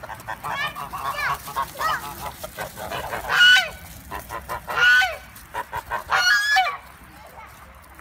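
A flock of domestic geese honking, a string of calls in quick succession with the loudest near the middle.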